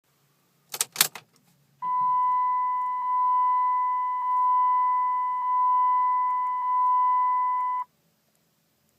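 A couple of sharp clicks, then the truck's dashboard warning chime sounding a steady beep, re-struck about every second and a quarter. It lasts about six seconds and cuts off sharply.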